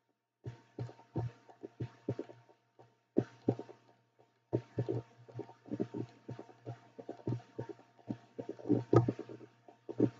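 Computer mouse clicking repeatedly at an irregular pace, several clicks a second at times, over a steady low electrical hum.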